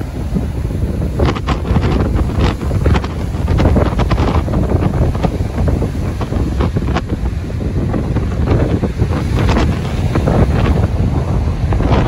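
Big ocean waves breaking and rushing in at the water's edge, a steady low roar with scattered crackles of spray. Strong wind buffets the microphone.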